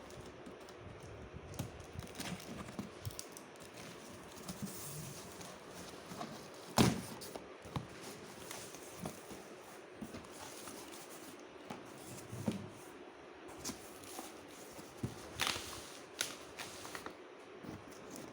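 Handling noise from a ceiling fan being unpacked from its box: scattered knocks, taps and rustling, with a sharper knock about seven seconds in and a few more clicks near the end.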